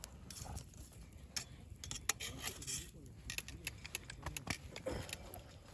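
Wood campfire crackling, with sharp irregular pops and snaps.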